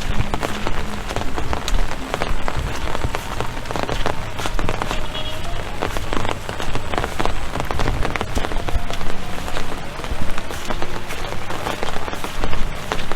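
Rain falling steadily, with many close drops landing as sharp ticks over a dense hiss.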